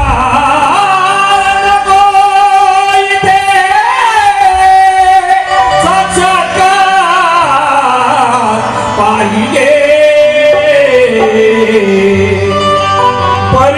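Music with singing: a Marathi Bhim geet with a melodic line that slides and wavers up and down, over instrumental accompaniment.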